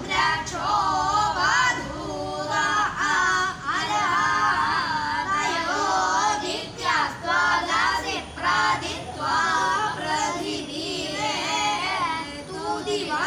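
A group of boys singing together, in short phrases with a sliding, ornamented melody.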